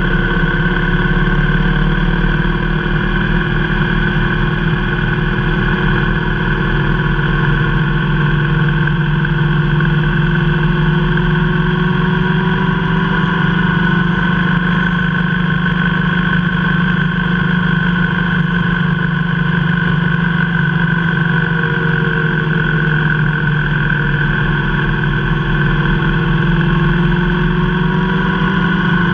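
Motorcycle engine running at a steady cruise, its pitch drifting gently up and down, heard from the saddle over a steady rush of road noise.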